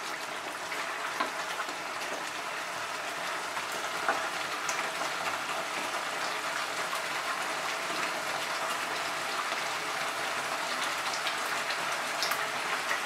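Thick yogurt-and-poppy-seed curry bubbling and sputtering in a pan over a high gas flame, a steady crackling hiss with a few faint ticks.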